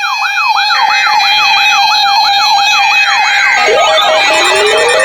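Electronic siren in a fast yelp, about three and a half sweeps a second, over a steady alert tone. About three and a half seconds in, more rising siren wails and a broken beeping tone pile on top.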